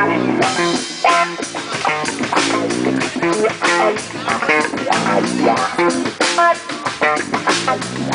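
A live band playing amplified music: electric guitar, bass guitar and drum kit, with a steady beat.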